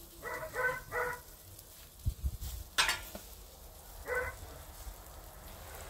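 Pork souvlaki skewers sizzling faintly on a charcoal grill as fresh lemon juice is squeezed over them. A dog barks in the background: three quick barks near the start and one more about four seconds in.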